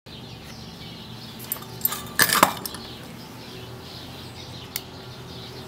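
A few light clinks and knocks of objects being handled, loudest in a short cluster about two seconds in, over a steady low hum.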